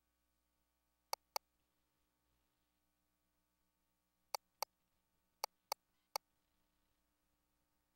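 Seven short, sharp clicks over near silence with a faint steady hum: a pair about a second in, another pair past the middle, then three in quick succession near the end.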